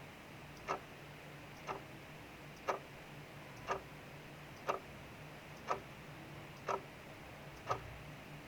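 Mechanical clock ticking steadily, one tick a second, over a soft steady hiss of rain outside.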